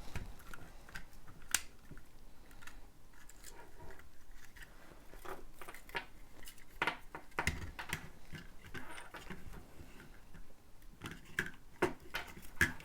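Small, irregular plastic clicks and light rustling as Lego bricks and thin LED light-kit wires are handled and pressed into place, with a few louder clicks about seven seconds in and again near the end.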